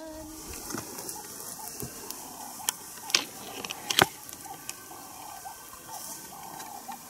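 Outdoor bush ambience: a soft steady hiss with a short call repeated about three times a second, and three sharp clicks around the middle, the last and loudest about four seconds in.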